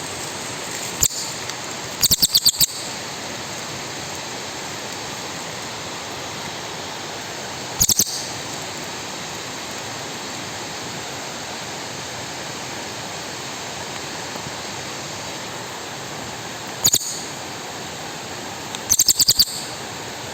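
Cililin bird calling in short high chirps: a single note about a second in, a quick run of about five notes at two seconds, a double note near eight seconds, then another single note and a quick run of five or six notes near the end. Under it a steady rushing noise.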